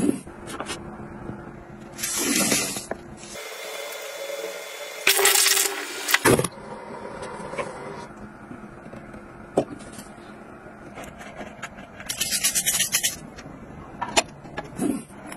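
A string of short household handling sounds: a sharp knock as a small hatchet-shaped box opener strikes a taped cardboard box, several loud bursts of scraping noise, and light clicks near the end as a plastic toilet brush is set into its holder.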